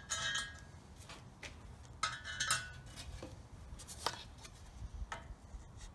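Steel tools and parts clinking and tapping against a steel stand's legs and bolts, several separate short metallic knocks, some with a brief ring.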